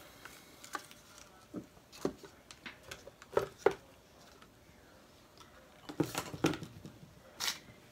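Scattered light clicks and knocks of plastic paint cups and a wooden stir stick being handled and set down, loudest as two sharp knocks about three and a half seconds in.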